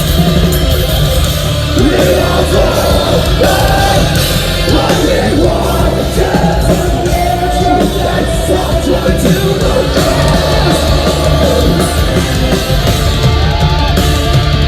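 Metalcore band playing live: heavy distorted guitars and pounding drums at full loudness, with a singer yelling and singing over them.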